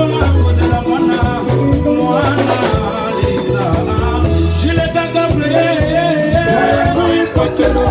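A band rehearsing Congolese rhumba: a bass guitar playing held notes under melodic guitar lines, with singing.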